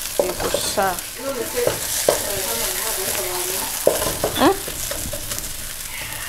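Food sizzling and frying in a pan on a gas stove while a wooden spoon stirs it, knocking against the pan several times.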